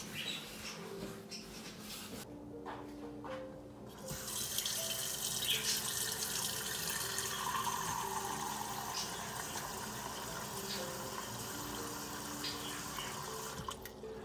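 Kitchen tap running into a small stainless steel saucepan held under it, filling it with water. The water starts about four seconds in and stops just before the end, over soft background music.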